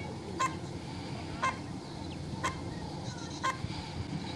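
Short electronic beeps, one each second, four in a row, over a steady background noise: race-timing countdown tones while the RC cars wait on the start grid.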